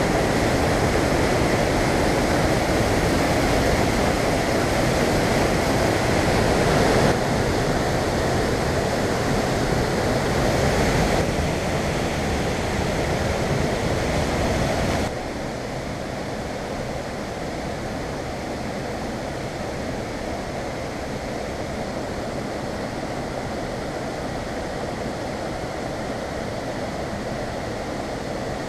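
Steady rushing noise of the Reekie Linn waterfall and its river in the gorge. It drops suddenly to a lower level about halfway through.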